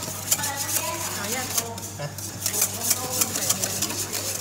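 Wire balloon whisk beating a milky gelato base in a stainless steel bowl, its wires clicking and scraping quickly against the metal.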